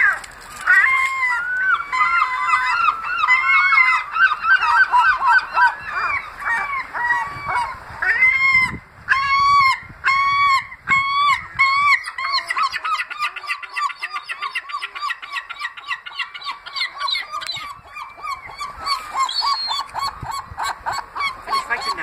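Herring gulls calling repeatedly: a string of short, arching calls that turn into a fast, near-continuous run from about twelve seconds in. These are the begging calls of a juvenile pestering an adult for food.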